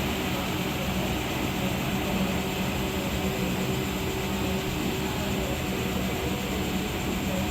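Electrolux Professional WN6-14 commercial washing machine spinning at high speed in its final extraction: a steady whirring drone with a constant low hum.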